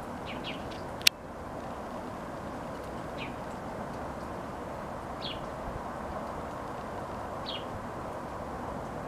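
Steady outdoor background rumble with small birds chirping: a quick run of three high chirps near the start, then single chirps every two seconds or so. One sharp click about a second in is the loudest sound.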